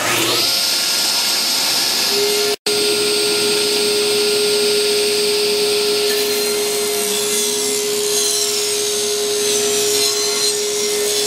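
Table saw running and cutting a dado along a wooden beam: a steady motor whine under a loud hissing cut. The cutting noise eases about six seconds in while the saw keeps running.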